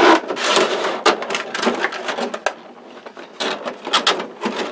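Clear plastic packaging tray crinkling and crackling as it is handled, a run of sharp crackles and rustles.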